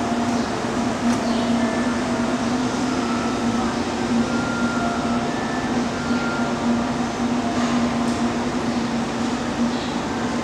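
Railway station ambience under a large roof: a steady low hum over a wash of background noise, with a few faint distant voices and small ticks.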